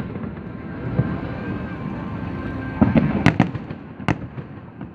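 Aerial fireworks bursting: a quick run of sharp bangs about three seconds in, then one more bang about a second later, over a steady background rumble.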